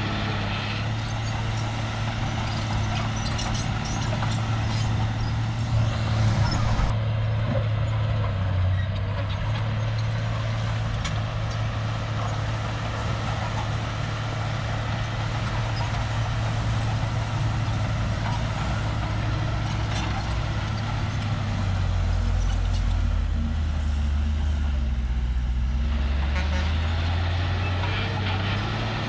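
Shantui crawler bulldozer's diesel engine running steadily. About three quarters of the way through, its pitch drops and wavers for a few seconds, then returns.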